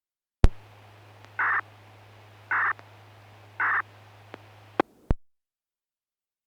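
A crow cawing three times, about a second apart, over a steady low hum. A sharp click opens the sound and two clicks near the end cut it off.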